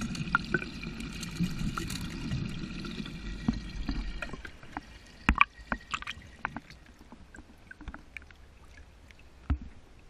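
Water sloshing around a fishing boat, fading after about four seconds, followed by a few sharp knocks and clicks on deck.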